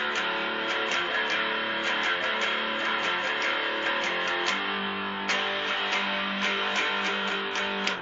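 Electric guitar strummed with a pick in a steady rhythm, about four strokes a second, the chord changing about five seconds in.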